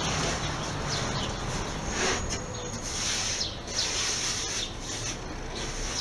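Large MDF panels shifted and rubbed by hand, a few short scrapes over a steady background hiss.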